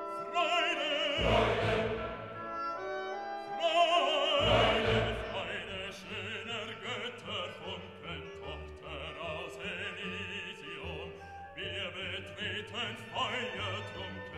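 Orchestral music with an operatic singing voice, loudest in two swells in the first five seconds.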